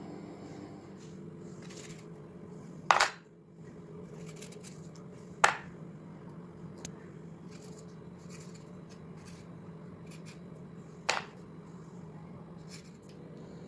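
Oreo biscuits being twisted apart by hand, with a few sharp clicks as the cookie halves drop into a plastic bowl, over a steady low hum.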